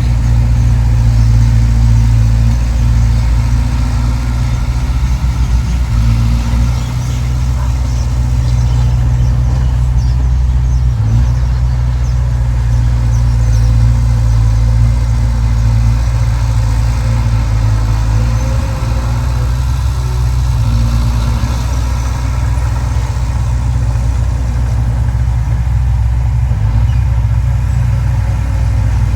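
Heavy earthmoving machine's engine running steadily, a loud low drone.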